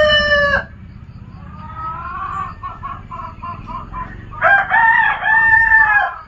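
Rooster crowing: one long crow ends about half a second in and another runs from about four and a half seconds until just before the end, with softer clucking in between.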